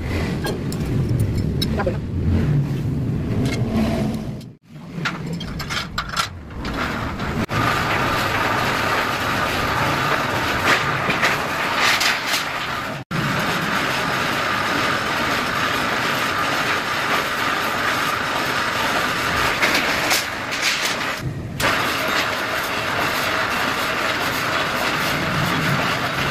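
Homemade galvalume slitting machine running on its electric motor: a steady mechanical hiss with a held mid-pitched whine while a galvalume sheet is fed through its cutting discs. The sound drops out briefly twice in the first half.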